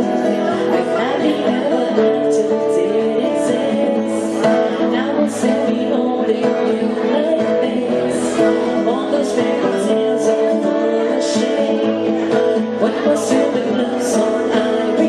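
Music: strummed acoustic guitar with singing.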